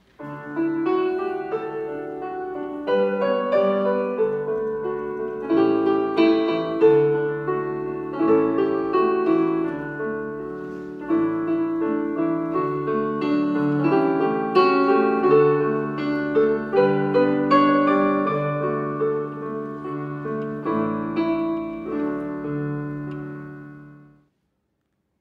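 Piano music: chords and a melody of held notes, fading out near the end.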